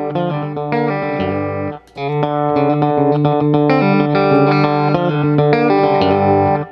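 Electric guitar music: sustained notes and chords over a bass line, with a brief break about two seconds in.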